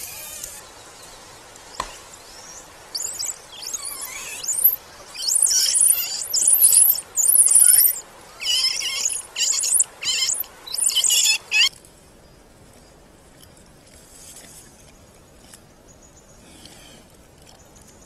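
Golden snub-nosed monkeys giving a rapid run of about a dozen loud, high-pitched calls, which cut off suddenly about two-thirds of the way through, leaving only faint forest background.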